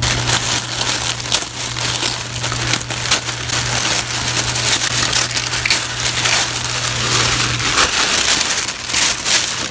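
Tissue paper crinkling and rustling as it is handled and pulled back. A steady low hum runs underneath and stops a little before the end.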